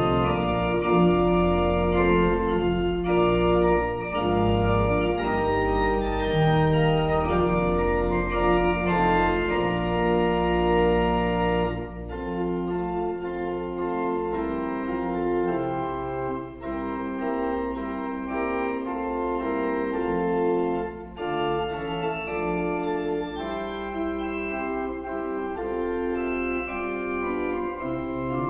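Church pipe organ playing the closing postlude: sustained full chords over a deep pedal bass, which drops out about a third of the way through, leaving lighter, higher chords with moving notes.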